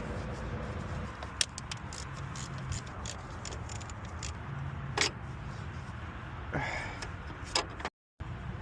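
A steady low mechanical hum with a few sharp metallic clinks scattered through it, and a brief cut-out near the end.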